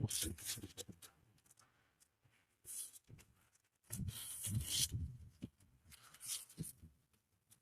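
Rustling and knocking of things being handled, in several short bursts.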